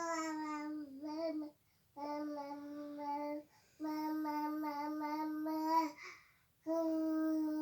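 A young child's voice making long, level-pitched sung vowel sounds, several in a row with short pauses between.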